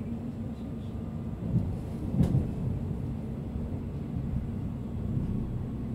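Cabin sound of a Berlin S-Bahn class 483 electric train: a steady low rumble with a faint hum, broken by two knocks about a second and a half and two seconds in, the second louder.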